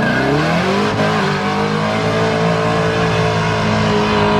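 Car engine revving: the pitch climbs over about the first second, then is held steady at high revs.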